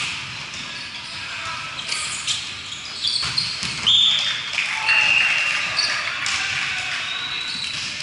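Volleyball rally: a serve, then several sharp hits of the ball, with players calling out.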